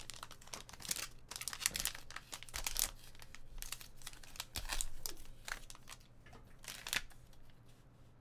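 Shiny foil trading-card pack wrapper being crinkled and torn open by hand: a dense run of crackles and rips that thins out and quietens over the last couple of seconds.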